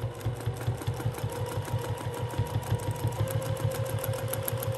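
Home sewing machine stitching steadily at speed during free-motion quilting: a rapid, even needle clatter over the hum and whine of its motor.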